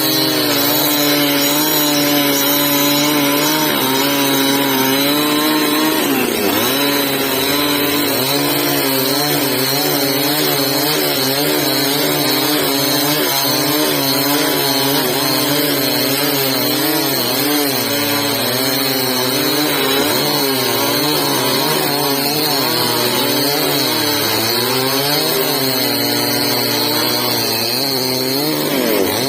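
Two-stroke chainsaw running and cutting wood, its engine pitch wavering as the load on the chain changes. The pitch dips and recovers about six seconds in and again near the end, over a steady high whine.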